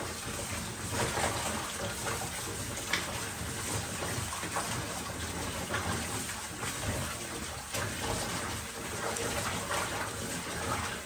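Kitchen tap water running into a plastic basin while hands swish and rinse pumpkin pieces in it, with small knocks and splashes; the pumpkin is being washed free of the slaked lime it soaked in.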